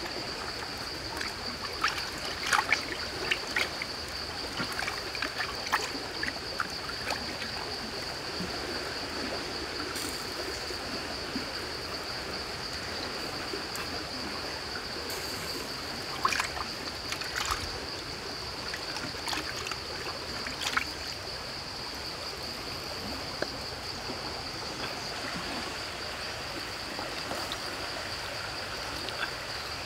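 Outdoor ambience of running water under one steady high-pitched drone, with scattered light clicks and taps as raw chicken legs are handled and set into a carbon-steel wok, clustered about two seconds in and again past the middle.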